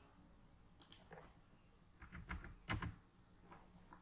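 Faint computer keyboard keystrokes and clicks: a couple about a second in, then a louder quick cluster a little past the middle.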